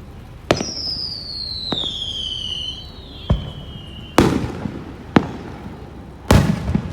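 Fireworks display: a string of sharp bangs from aerial shells bursting, the loudest two with a rumbling tail. A long whistle starts with the first bang and falls slowly in pitch over about three and a half seconds.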